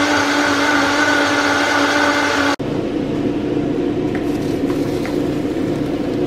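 Countertop blender running at speed, pureeing roasted red peppers and tomatoes into a pasta sauce. It cuts off abruptly about two and a half seconds in, and a steady, lower hum follows.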